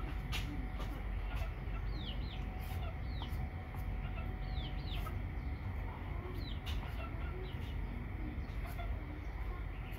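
Chickens clucking, with repeated high chirps that fall in pitch, and the short scrapes of a hand-held vegetable peeler stripping the skin off a winter melon.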